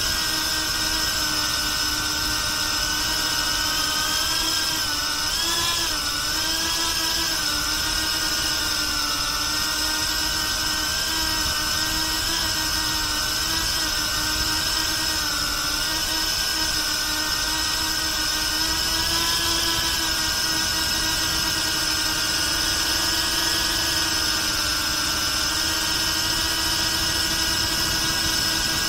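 BetaFPV Pavo360 cinewhoop in flight: its brushless motors and ducted propellers give a steady whine. The pitch wavers with throttle changes, most noticeably about six seconds in and again near twenty seconds.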